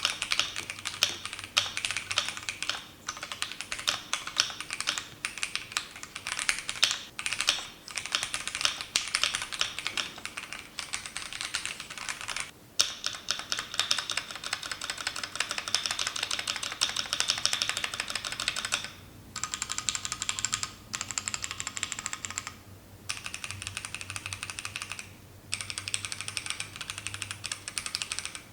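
Keychron Q1 Pro mechanical keyboard with Keychron K Pro Brown tactile switches being typed on: a fast, steady stream of keystroke clacks broken by a few brief pauses.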